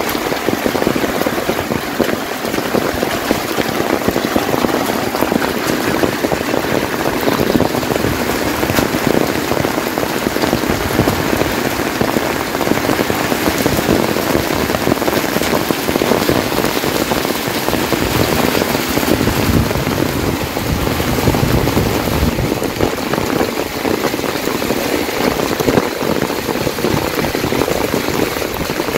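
Heavy rain falling steadily, countless drops striking the ground and nearby surfaces in a dense, even hiss.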